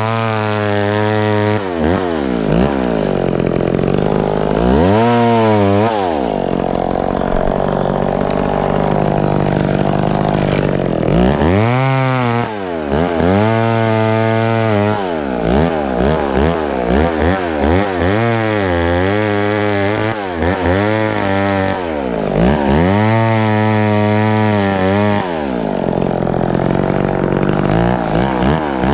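Vintage two-stroke chainsaw cutting wood. The engine is revved up and down again and again, with steadier stretches at high speed in between.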